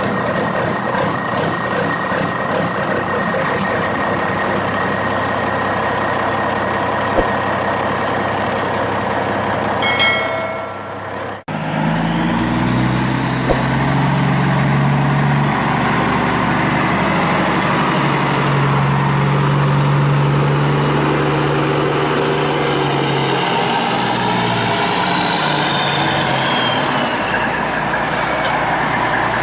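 Heavy truck engine running steadily. About 11 seconds in it cuts off suddenly and a second engine sound takes over, with a whine that rises and then falls away near the end.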